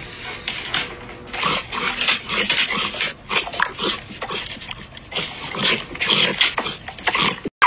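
A dog making a quick run of short, irregular noises, starting about a second in and going on until near the end.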